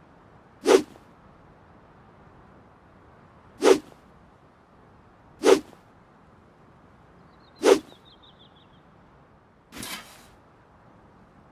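Handmade longsword swung through the air: four quick, sharp swishes a few seconds apart, then a fifth, softer and longer swish near the end.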